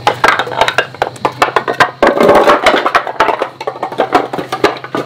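Wooden lumber-block dominoes toppling one after another on a concrete slab: a fast, continuous clatter of wood knocking on wood and concrete.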